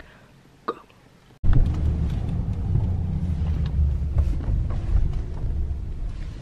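Steady low rumble of car engine and road noise inside the cabin, starting abruptly about a second and a half in.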